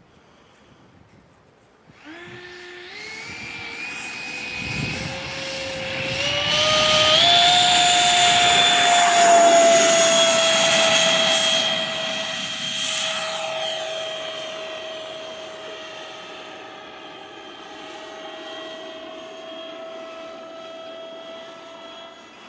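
Electric ducted-fan jet (HET 9305-700 fan unit driven by a Typhoon 700-68 motor) spooling up suddenly about two seconds in, its whine rising in pitch in steps as the throttle is opened for the takeoff run. It is loudest for several seconds in the middle, then settles into a steady high whine that slowly fades as the model climbs away.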